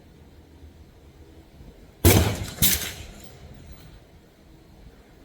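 .22 rimfire rifle shots on a range: two sharp reports about half a second apart, a couple of seconds in, each trailing off briefly.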